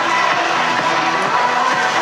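Background music, with sustained layered tones and a steady level.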